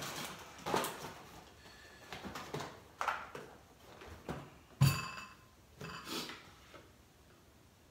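A cardboard cereal box and its plastic inner bag being handled and rustled, with a few light knocks. About five seconds in there is a heavier thump, the box being set down on a table.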